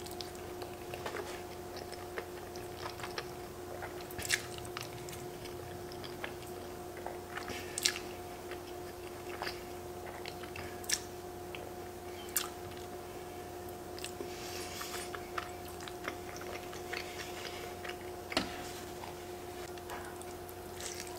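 A person eating fettuccine alfredo up close: chewing and sucking in strands of pasta, with scattered wet mouth clicks and smacks. A steady low hum runs underneath.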